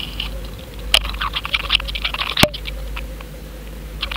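Underwater fish-cam audio: a steady hum under bursts of rapid clicking and crackling, with two sharp knocks, about one and two and a half seconds in.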